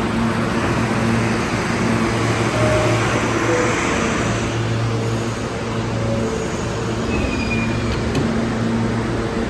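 R160A subway train standing at a station platform, its on-board equipment giving a steady electrical hum. A rushing hiss runs under it for the first few seconds and fades out about halfway through.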